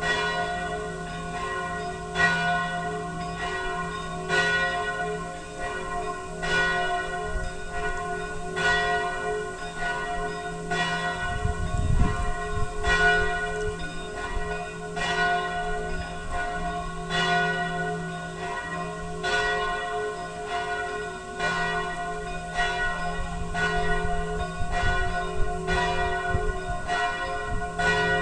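Church bells pealing, several bells struck in turn about once a second, each stroke ringing on so the tones overlap into a continuous hum. A brief low rumble comes about twelve seconds in.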